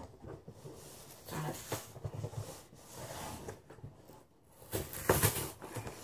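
Cardboard shipping box being handled and worked open by hand: irregular scraping, scratching and rustling of cardboard, with a louder burst of handling noise about five seconds in.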